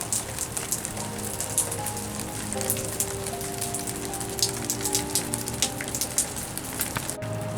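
Rain falling steadily, with many sharp individual drops, under soft music with held notes.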